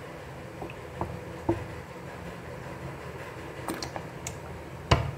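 A few light clicks and taps of an oil bottle and utensils against an iron griddle on a gas stove, as cooking oil is poured on and spread. The sharpest tap comes near the end, over a low steady hum.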